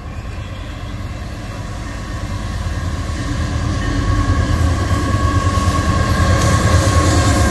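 Diesel-electric freight locomotive approaching on the main line, its engine rumble growing steadily louder as it nears, with a thin high whine above it from a few seconds in.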